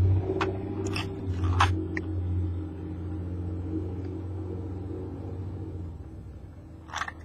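Low, steady engine rumble, fading out about six seconds in, with a few light clicks and taps from small metal lock pins being handled.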